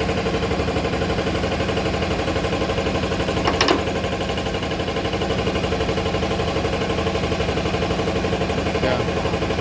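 Toilet paper rewinding machine running steadily, with a fast, even mechanical beat over a constant low hum. A short hiss comes about three and a half seconds in.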